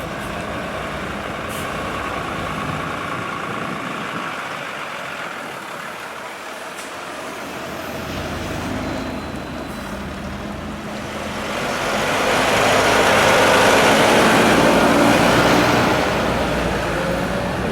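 A fire engine's motor running steadily. Past the middle a loud rushing hiss swells up, holds for about five seconds and then eases off.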